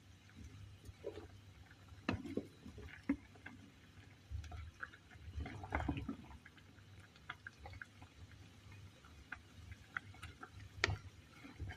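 A pot of water with fruit and spices simmering: faint, irregular small bubbling pops and ticks, with a few louder clicks.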